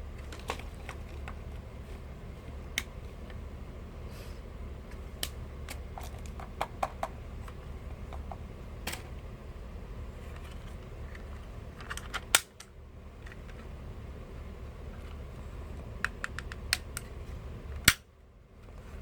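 Scattered clicks and knocks of a plastic airsoft pistol being handled, with two much louder snaps about twelve and eighteen seconds in, over a low steady hum.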